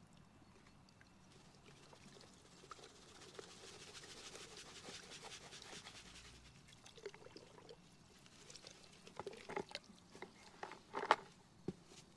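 Liquid pool flocculant poured from a plastic jug into a bucket of water, a soft splashing pour that swells and then fades about seven seconds in. After it, a run of sharp clicks and knocks, the loudest about eleven seconds in.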